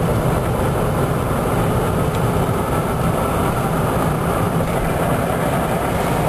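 Steady road and engine noise inside a moving Mercedes-Benz's cabin, its tyres rolling over a snow-covered road.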